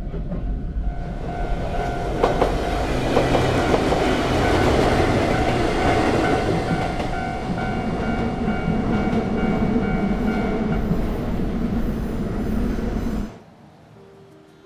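Nankai electric train passing over a railway level crossing, its wheels clicking over the rail joints, while the crossing's warning bell rings in an even, rapid rhythm. The train sound cuts off suddenly near the end.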